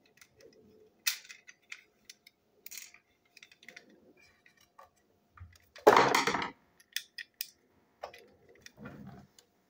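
Small plastic model railway coach parts, body shell and wheeled underframe, clicking and knocking as they are handled and fitted together, with one louder clatter about six seconds in.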